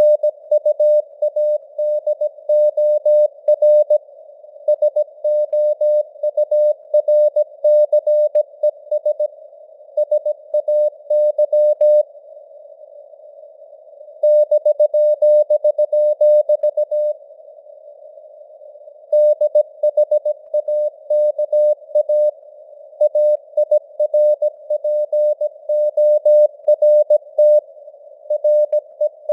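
Morse code (CW) sent at 17 words per minute as a single keyed tone, dots and dashes in a quick rhythm, over a steady hiss of simulated radio noise. The sending pauses twice for about two seconds partway through.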